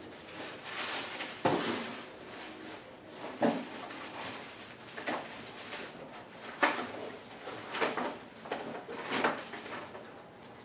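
Rummaging through drawers and loose parts: about six sharp clunks and knocks, roughly one every one to two seconds, with faint clatter between them.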